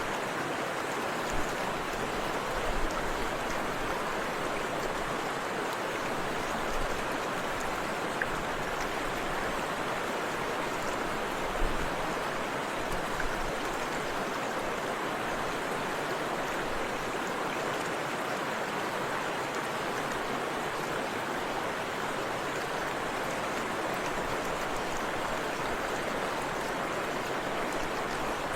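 Forest river and small waterfall rushing steadily, with a few soft low thumps now and then.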